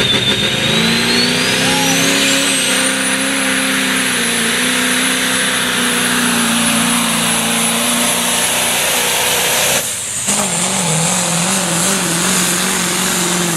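Pulling truck's engine running hard under load, with a high whine that climbs over the first three seconds and then holds steady. About ten seconds in the sound drops briefly, then the engine runs at a lower pitch that wavers up and down.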